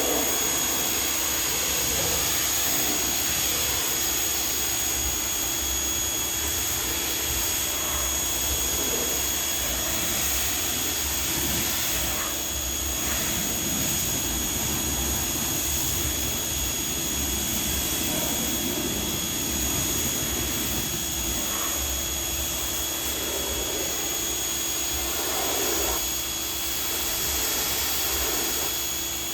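Active 2.0 electric pressure washer running steadily, its pump humming while a 40-degree nozzle sprays a continuous hiss of water to rinse foam off a car.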